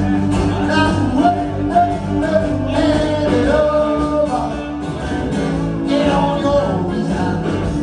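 Live blues band playing, with a singing voice carrying the melody over guitar.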